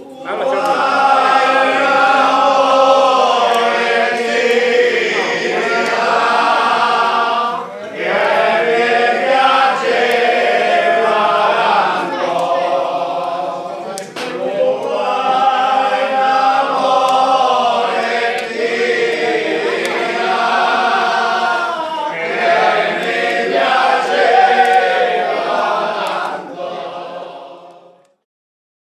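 A group of voices singing a traditional Gargano folk song together, unaccompanied, in four long held phrases. The song fades out near the end.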